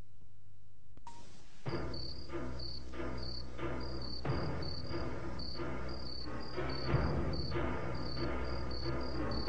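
Crickets chirping, short high chirps a couple of times a second, setting in about two seconds in over background music.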